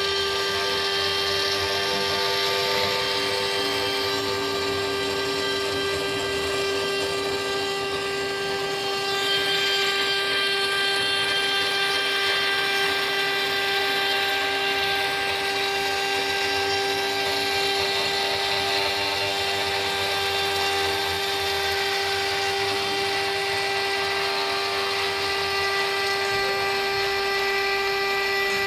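CNC router spindle running steadily at speed while a small end mill cuts a circle through 3 mm Dibond aluminium composite panel: a steady, high machine whine with the hiss of the cut.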